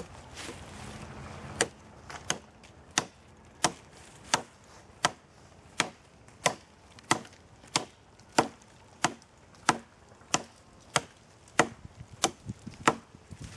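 Small hatchet chopping into a green sapling pole to cut it to length. The blows are evenly paced, about one and a half a second, and start about a second and a half in.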